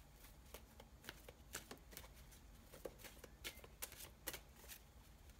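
Near silence with faint, irregular small clicks and rustles scattered throughout, with no clear rhythm.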